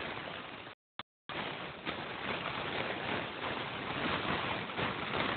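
Clear plastic bag crinkling as it is squeezed and crumpled in a toddler's hands, a steady rustling noise, with the recording cutting out briefly about a second in.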